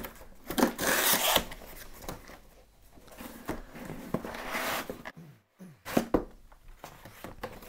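Cardboard shipping box being handled open, its torn flap scraping and rustling, then a paper padded mailer crinkling and sliding against the cardboard as it is pulled out. The sound comes in uneven bursts, loudest about a second in.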